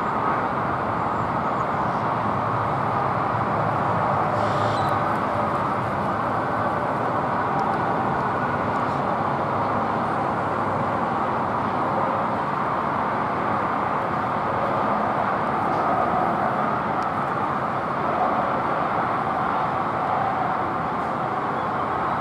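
Steady, even roar of outdoor urban background noise, traffic-like, with no rise or fall.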